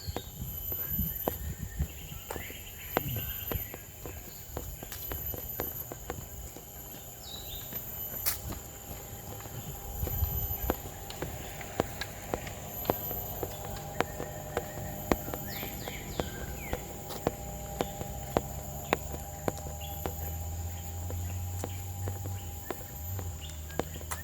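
Footsteps of a person walking at a steady pace, about two steps a second, over a continuous high-pitched drone of forest insects. A faint low rumble comes in over the last few seconds.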